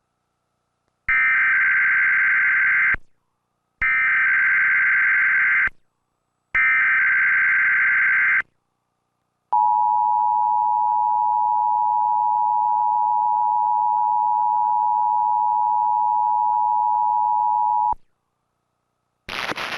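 Emergency Alert System tones: three two-second bursts of the warbling digital SAME header, each followed by a short pause, then the steady two-tone attention signal holding for about eight seconds and cutting off.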